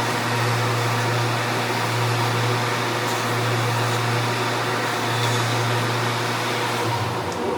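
Electric power tool motor running steadily, a low hum under a hiss. The hum cuts out near the end.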